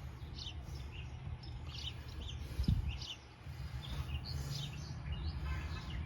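Small birds chirping repeatedly in short high notes in the background over a low steady rumble, with a single brief thump a little under three seconds in.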